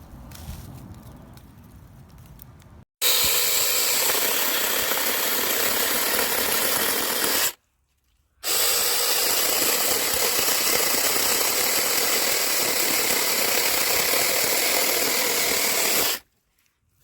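Battery-powered 6-inch mini chainsaw running steadily, its motor and chain making an even, loud noise. It comes in two stretches, one of about four seconds starting a few seconds in and a longer one of about eight seconds, each cut off abruptly.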